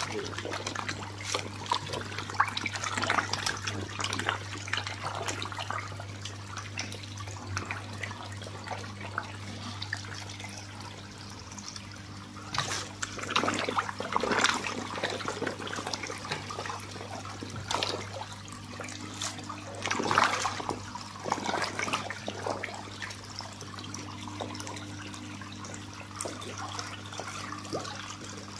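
Water splashing and trickling in a tilapia tank as the fish thrash at the surface and a pipe pours water in, over a steady low hum. The splashing swells louder about halfway through and again a few seconds later.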